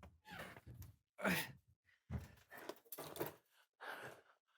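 A person's short, quiet sighs, gasps and groans, several in a row without words, the loudest about a second in.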